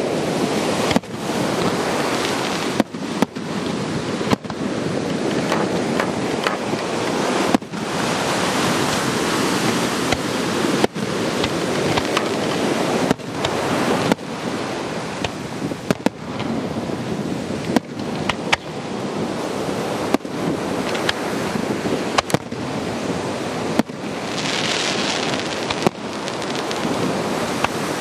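Aerial fireworks shells bursting, sharp bangs every one to three seconds, over a constant rushing noise, with a brief hissing swell near the end.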